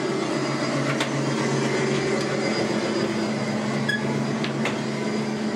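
A steady low machinery hum with two steady low tones, typical of ventilation or air-handling running, with a few light clicks about one, four and four and a half seconds in.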